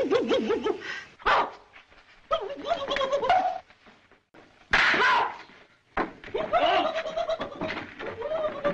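Laughter: a person laughing in several bursts with short pauses between them.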